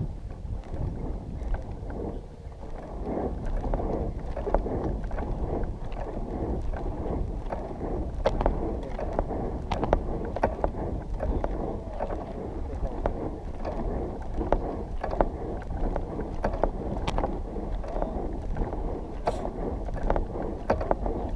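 Wind buffeting the camera's microphone: a steady, muffled rumble that rises and falls, with scattered sharp clicks and knocks.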